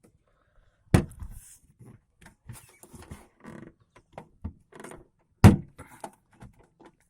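Maruti 800 car door being shut with a loud thud about a second in and again about four and a half seconds later, with a string of smaller clicks and knocks from the door in between.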